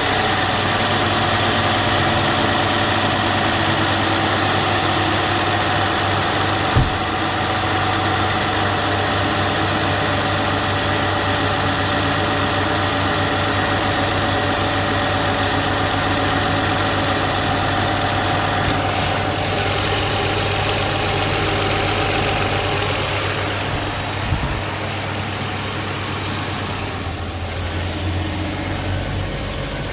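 2008 Toyota RAV4's 3.5-litre V6 idling steadily, with the engine ticking noise that is being diagnosed. A short sharp knock sounds about seven seconds in and another near twenty-four seconds.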